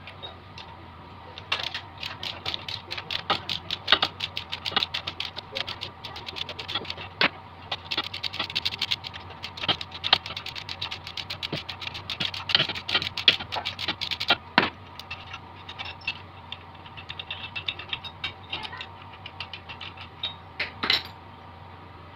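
Rapid metallic clicking and clattering of a hand tool working on the cylinder head of a Honda GX390 engine, in long runs with short breaks and one louder knock near the end.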